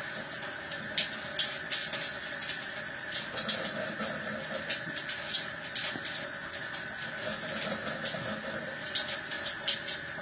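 Thin stream of water running steadily from a Kangen water ionizer's spout, with a cat lapping at it: a constant splashing hiss broken by frequent small, irregular wet clicks.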